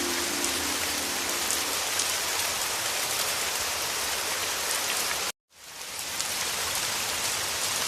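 Heavy rain falling: a steady, even hiss with small spatters of drops. About five seconds in it cuts out abruptly for a split second, then fades back in.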